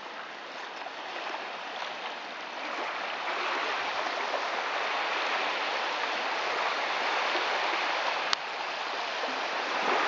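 Small waves lapping and washing onto a sandy shore, a steady hiss that swells after a few seconds, with one sharp click near the end.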